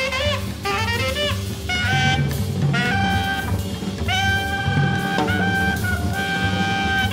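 Jazz trio music: a tenor saxophone plays a run of short notes, then longer held notes from about two seconds in, some scooping up into pitch, over bass and a drum kit.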